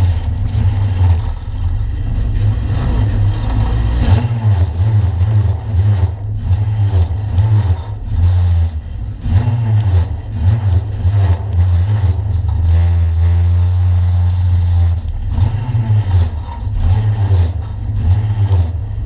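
A 1-litre stock car's engine, heard from inside the stripped cabin, running at low speed with uneven throttle. It settles to a steady idle about 13 seconds in, then picks up again. Short knocks and rattles from the car come through throughout.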